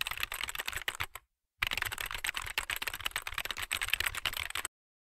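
Rapid computer-keyboard typing: a quick run of keystroke clicks, a short break about a second in, then a longer run that stops shortly before the end.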